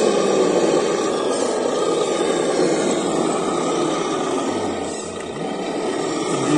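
Scale RC rock crawler's electric motor and geared drivetrain whirring steadily under load as it climbs a steep dirt bank, easing off briefly about five seconds in.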